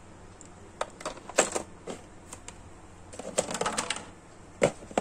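Hard plastic clicks and small rattles from an action figure and its plastic packaging tray being handled: a few sharp clicks around a second in, a quicker cluster of rattling clicks around three and a half seconds in, and one sharper knock near the end.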